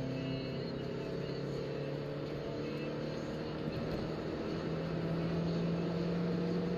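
The 1.5-litre four-cylinder engine of a 1994 Toyota Corolla 4WD, heard from inside the cabin, pulling hard under acceleration with its pitch climbing gradually.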